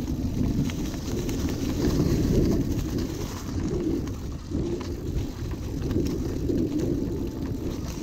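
Mountain bike rolling along a dirt forest singletrack, heard from the rider's body-mounted action camera: a continuous rumble of tyres on the trail and wind buffeting the microphone, with light clicks and rattles from the bike.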